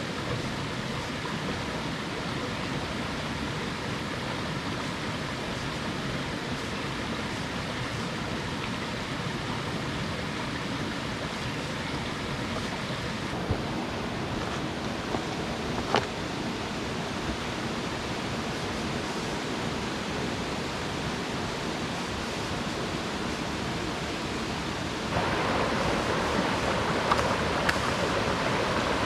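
Steady rush of running water from a forest stream or waterfall, with a faint sharp click about halfway through. Near the end it steps up suddenly to a louder, brighter rush.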